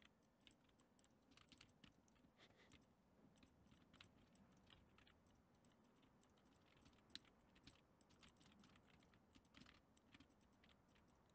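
Near silence with faint, scattered computer keyboard key presses and mouse clicks, one a little louder about seven seconds in.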